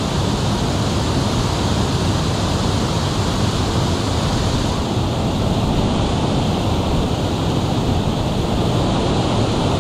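Water pouring over a low concrete dam into the pool below: a steady, unbroken rush of falling water.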